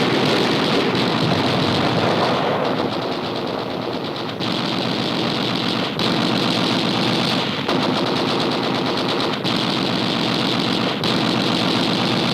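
Rapid machine-gun fire in long continuous strings, with brief breaks every couple of seconds, heard as an old film soundtrack effect: gunfire poured into a surfaced submarine.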